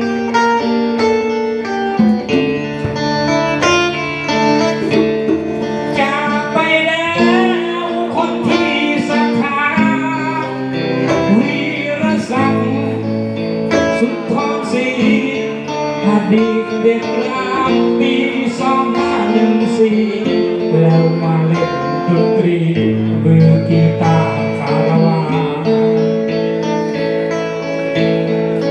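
Live band playing a song led by guitar, with a man singing into a microphone over it.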